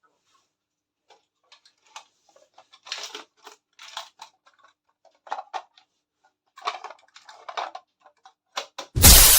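Small plastic miniature kitchen toy pieces being handled and unpacked: scattered light clicks, taps and rustles. Near the end a loud, sudden crash-like burst sounds and fades away.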